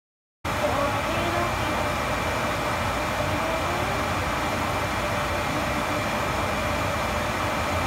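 Large pot of water at a rolling boil with udon noodles cooking in it: a steady rushing, bubbling noise that starts about half a second in, with a faint steady high tone running through it.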